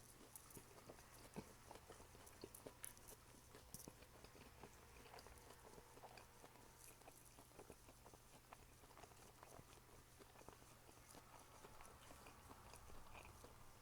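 Faint chewing and wet mouth clicks of a person eating, with many small scattered clicks.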